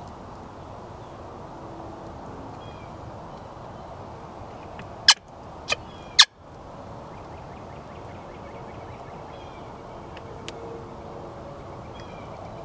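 Three sharp knocks about half a second apart, a little before the middle, much louder than the steady outdoor background: handling bumps on the camera as it is swung through the brush.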